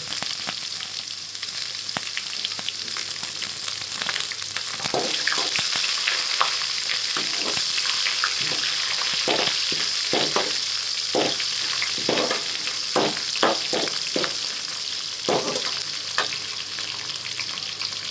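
Chopped onion sizzling in hot oil in a kadai, fried as part of a tempering with mustard seeds, cumin, curry leaves and dried red chillies. A steady sizzle, with a ladle scraping and stirring in repeated short strokes from about five seconds in.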